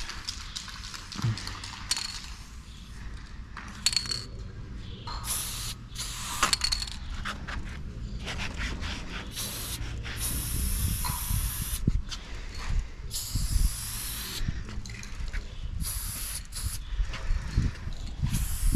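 Aerosol spray-paint can hissing in a series of short bursts, from a fraction of a second to about a second long, with small clicks and knocks between them.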